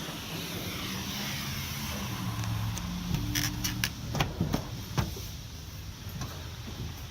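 An engine running steadily, with a quick cluster of knocks and clatters about three to five seconds in.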